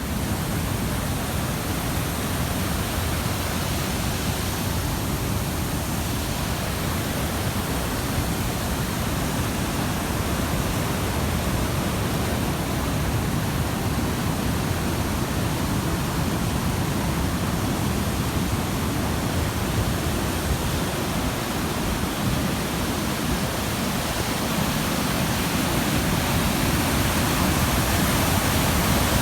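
Waterfall on the fast-flowing Tulijá river: a steady, dense rushing of falling water that grows a little louder near the end.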